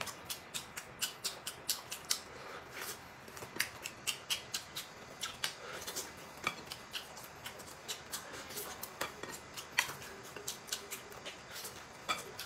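Close-up eating sounds of a steamed bun (baozi) being bitten and chewed: a run of soft, irregular mouth clicks and smacks, several a second.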